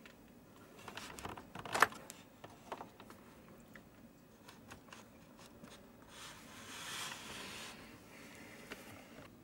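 Handling noises from repair work: a run of small clicks and knocks, the loudest a sharp knock about two seconds in, then a scraping rustle lasting about a second and a half, followed by a few more light clicks.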